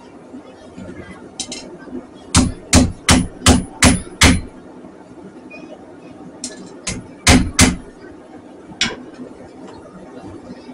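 Blacksmith's hammer striking hot steel on an anvil while forging a knife blade. A run of six blows comes about three a second, a few more follow after a pause, and a last one lands near the end, each with a short metallic ring.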